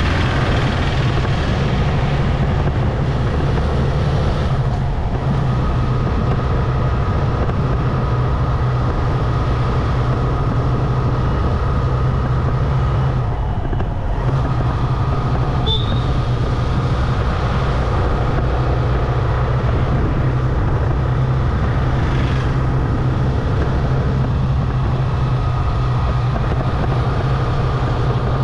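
Motorcycle engine running steadily while riding in town traffic, a constant low rumble. A brief high chirp sounds about halfway through.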